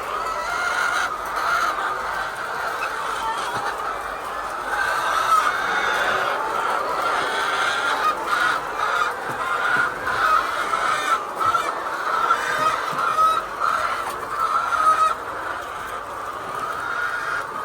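A large flock of laying hens clucking and calling together in a poultry house, many voices overlapping into a steady chorus. A few sharp knocks come through in the middle.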